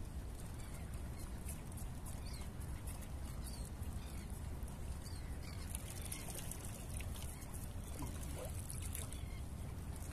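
Small waves lapping and trickling against shoreline rocks, with scattered short splashy crackles, over a steady low rumble.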